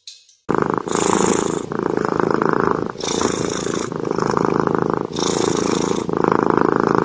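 Kitten purring steadily, starting about half a second in. The purr comes in phrases of about a second with brief breaks between them as it breathes in and out.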